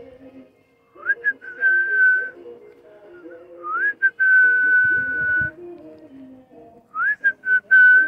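A person whistling to call pigeons to food: three calls, each a few short notes and a rising slide into a long held note, the middle call the longest.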